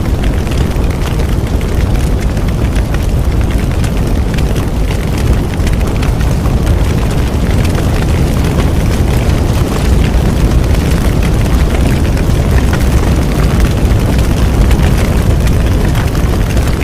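Bonfire burning: a steady low rumble from the fire with constant small crackles and pops.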